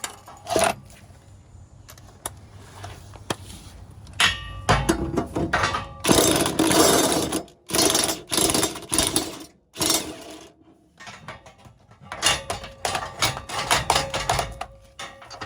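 Socket ratchet clicking and metal clanking as the heat-loosened blade bolt is turned off a zero-turn mower's blade spindle, in irregular bursts with a run of quick ratchet clicks near the end.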